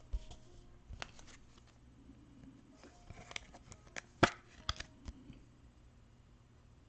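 A sleeved trading card being handled and slid into a rigid plastic top loader: scattered plastic clicks and taps with light rustling. The sharpest tap comes about four seconds in.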